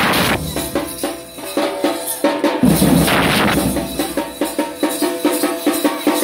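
Street procession band playing: hand-held metal shakers and steel drums beat out a quick, even rhythm while brass horns hold a tune over it, with a swell of crashing percussion about three seconds in.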